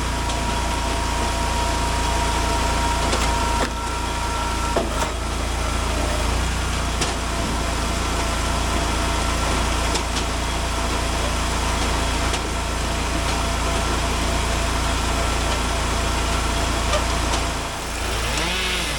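Gas engine of an Eastonmade AXIS hydraulic log splitter running steadily, with a steady whine, a few sharp knocks and wood cracks as logs are split. Near the end, a chainsaw starts revving up and down.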